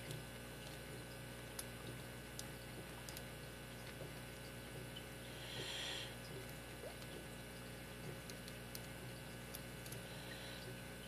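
Faint, scattered metallic ticks and light scraping of a lock pick and tension wrench working the pin stack of a six-pin Yale padlock, over a steady low hum. A short swishing rustle comes about halfway through.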